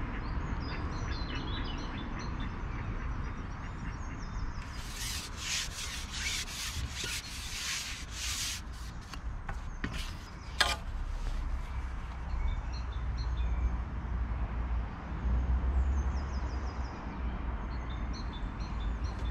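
Songbirds singing on and off, with a close spell of rough rubbing and scraping strokes about four to nine seconds in and one sharp click just after. A low rumble runs underneath.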